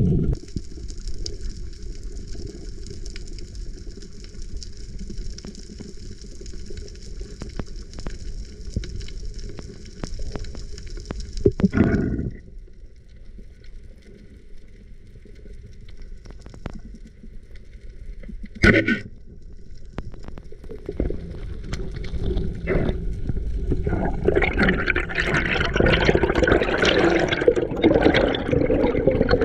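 Muffled underwater water noise on a spearfisher's camera: a steady low rush with scattered faint clicks, two brief louder bursts about 12 and 19 seconds in, and a louder churning of water that builds over the last several seconds.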